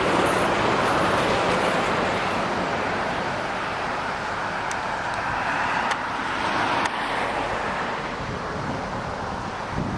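A VIA Rail passenger train running by on the rails, a steady rumbling noise that slowly fades as it moves off, with a few faint clicks about midway. No horn is sounding.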